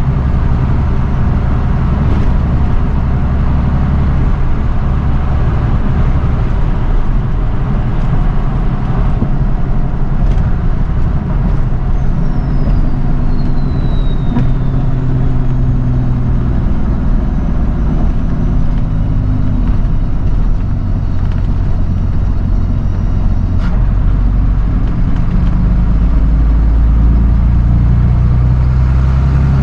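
Flatbed straight truck driving: a steady low engine and road drone whose engine pitch shifts a few times.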